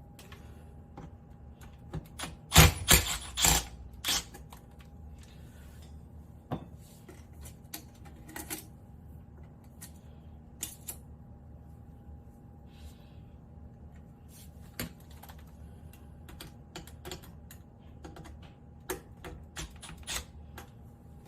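Scattered clicks and knocks of tools and fittings being handled, with a louder cluster of clattering about three seconds in, over a faint steady hum.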